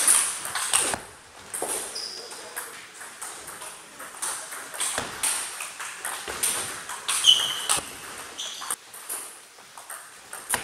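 Table tennis ball being hit back and forth in a rally, sharp clicks off the rackets and the table following one another at a steady pace.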